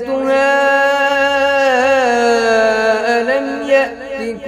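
A male reciter's voice chanting Quran recitation, holding one long elongated note with a wavering melodic turn about two seconds in, then easing off near the end.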